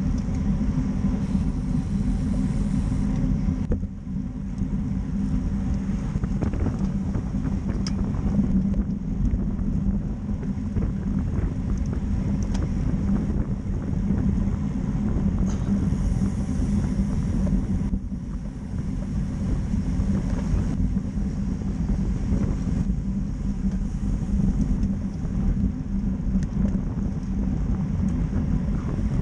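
Steady wind rumble buffeting a bike-mounted camera's microphone at road-racing speed, with tyre and road noise from the bicycle and the pack around it.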